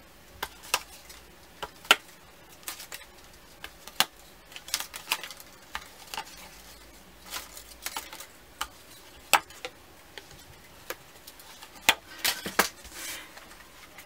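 Irregular small clicks, ticks and crinkles from hands working a roll of glue dots, pulling the strip off the roll, and handling cardstock on a tabletop.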